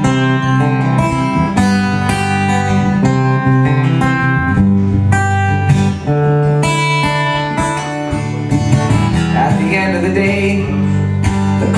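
Acoustic guitar strummed in a steady rhythm of ringing chords: an instrumental passage between verses of a song.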